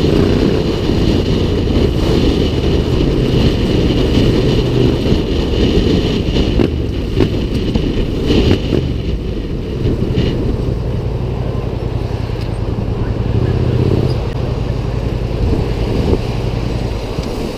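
Motorcycle engine running as the bike rides through traffic, with heavy wind rumble on a helmet-mounted microphone; the engine's higher whine fades about halfway through as the bike slows.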